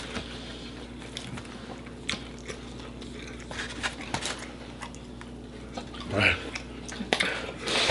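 Scattered small clicks and mouth sounds of people eating chicken wings, with a brief vocal sound about six seconds in.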